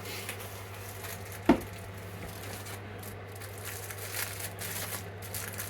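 Loose tool parts and packaging being handled with light rustling, and one sharp knock about a second and a half in, over a steady low hum.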